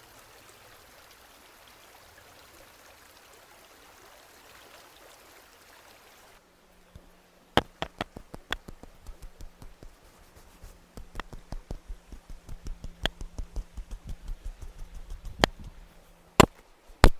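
Faint, even hiss of flowing water for the first six seconds or so, then a long run of irregular sharp clicks and knocks.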